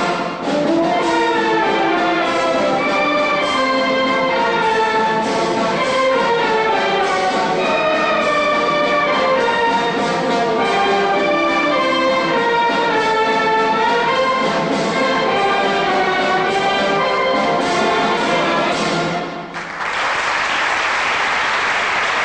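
A brass-and-woodwind band playing a piece live, ending near the end; the audience then breaks into applause.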